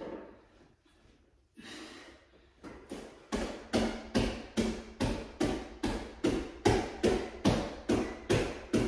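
Quick, evenly spaced taps or thuds, about two and a half a second, starting around three seconds in after a few quieter, irregular sounds.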